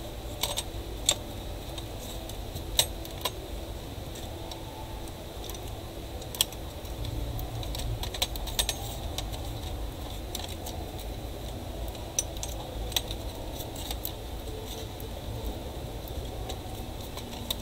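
Scattered sharp clicks and light knocks as a Dell Inspiron 15R-5521 motherboard is pressed and shifted against its plastic bottom case, the board not yet seating, over a steady low hum.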